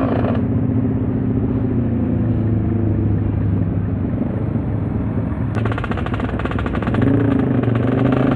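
Motorcycle engine running steadily while riding. About two thirds of the way in, a sharper, rapidly pulsing engine sound joins it.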